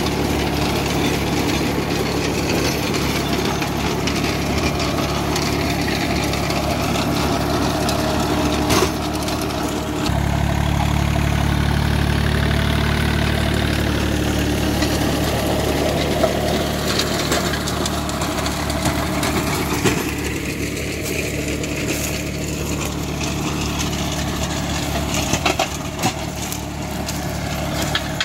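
John Deere 3028EN compact tractor's three-cylinder diesel engine running steadily under load while it drives a rotavator through dry soil. It grows louder as the tractor passes close about ten seconds in, then fades as the tractor moves away.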